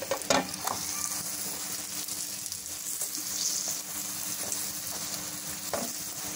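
Paratha frying in ghee on a hot nonstick pan: a steady sizzle, with a spatula pressing and scraping it against the pan. There are a few short knocks in the first second and one more near the end.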